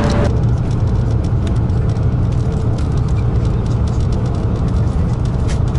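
Steady low rumble of a high-speed train running at speed, heard from inside the passenger car, with a faint steady hum and scattered light ticks.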